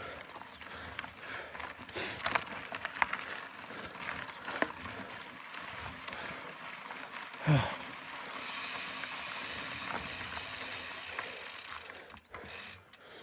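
Mountain bike coasting on a trail, its rear freehub ratchet clicking, with scattered knocks and rattles from the bike. About seven and a half seconds in, a brief loud sound drops sharply in pitch, the loudest moment, followed by a few seconds of steady hiss.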